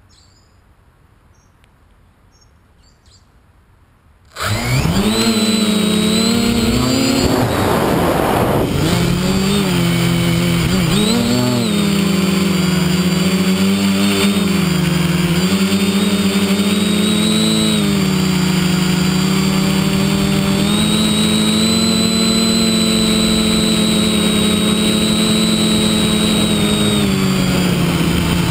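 Quadcopter's electric motors and propellers, recorded onboard: after about four quiet seconds they spin up abruptly into a loud, steady buzzing whine. The pitch rises and dips with the throttle as the quad lifts off and flies.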